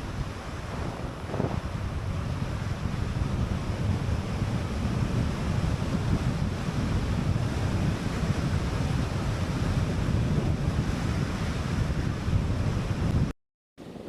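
Wind buffeting the microphone on a fast bicycle descent: a steady, loud rushing noise. It cuts out for about half a second near the end.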